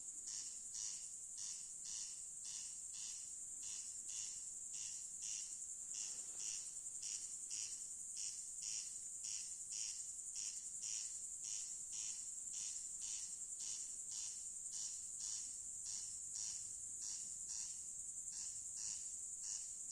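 Corn crake (Crex crex) calling at night: a dry, rasping 'crex crex' repeated in a steady, even rhythm of about two to three rasps a second. A continuous high-pitched insect trill runs underneath.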